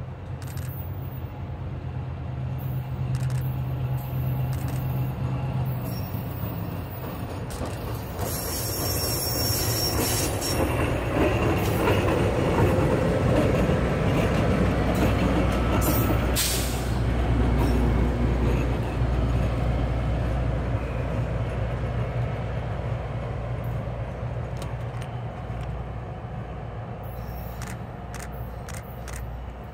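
Two SEPTA diesel locomotives running light past at close range: a deep, steady engine rumble that swells as they draw near, is loudest about halfway through as they pass, and then fades as they move away.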